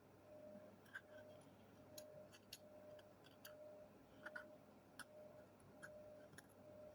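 Faint, irregular small clicks and scratches of a crumbly paper seal label being picked and peeled off a Zippo lighter's case, under a faint tone that pulses about twice a second.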